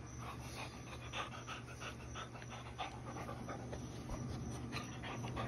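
A dog panting close by: a steady run of quick, rhythmic breaths.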